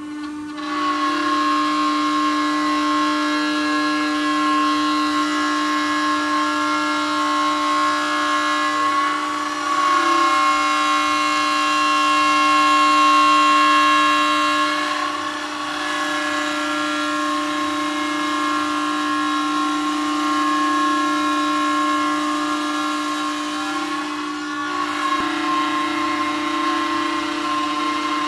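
Spindle of a STYLECNC STM1325CH CNC router running at a steady speed as it machines a solid-wood door panel: a high, steady whine with cutting noise. The sound dips briefly near the start, about halfway through and near the end, and swells louder for a few seconds about a third of the way in.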